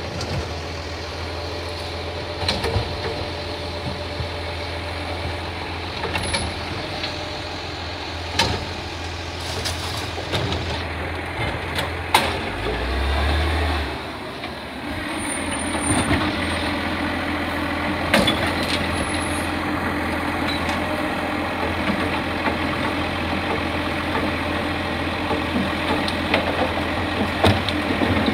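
Side-loading garbage truck's diesel engine idling and creeping forward between bins, with a brief deeper rumble about halfway and a few sharp clanks and air-brake hisses. In the second half a steady hydraulic whine joins in as the lifting arm works.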